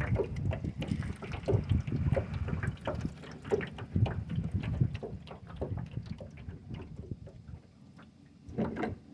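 Water sloshing and splashing against a small boat, with scattered knocks on the hull, dying down near the end.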